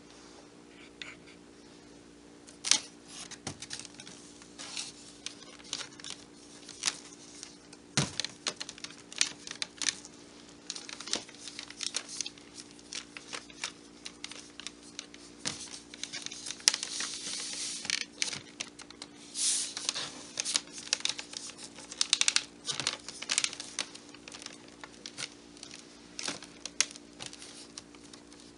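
Irregular clicks, taps and crinkling, as of something being handled by hand, scattered throughout over a faint steady hum.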